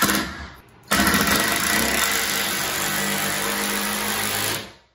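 Cordless drill driving a screw through the door jamb into the framing. A brief run ends right at the start, then after a short pause the drill runs steadily for about three and a half seconds and winds down near the end.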